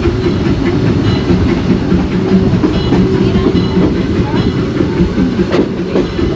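Narrow-gauge park train rolling along its track, heard from an open-sided passenger car: a steady low rumble of the running gear, with a few faint clicks near the end.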